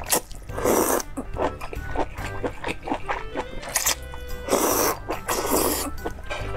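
Background music under two loud slurps as strips of tripe are sucked into the mouth. The first is short, just before a second in; the second, longer one runs from about four and a half seconds to six.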